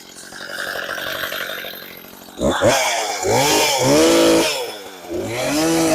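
Two-stroke gas chainsaw running low, then revved sharply to full throttle about two seconds in and held there. It drops off briefly and revs up again near the end.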